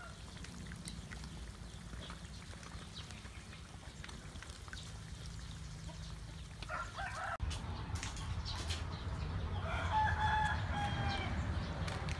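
Chickens clucking, with a rooster crowing in a long held call near the end. Under the first half there is a faint sizzle of bananas deep-frying in oil.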